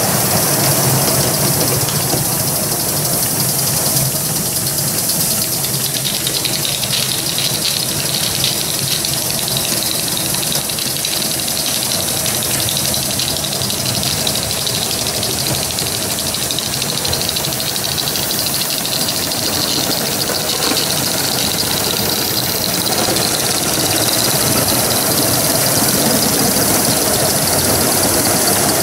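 Two live-steam Gauge 1 Aster BR 86 tank locomotives working a train together, with a steady hiss of steam exhaust.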